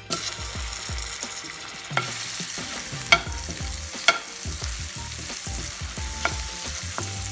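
Butter sizzling as it goes into hot melted caramel sugar in a nonstick pan, starting suddenly and hissing steadily while a metal spoon stirs it, with about four sharp clicks of the spoon against the pan.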